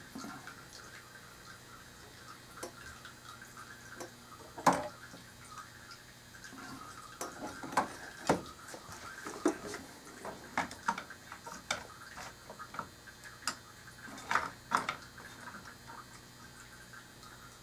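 Painting tools being handled off the easel: irregular light taps and clicks, with a sharper knock about five seconds in and a run of taps in the second half.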